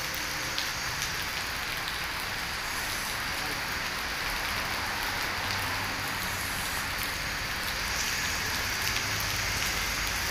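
A steady, even hiss with a few faint clicks and taps.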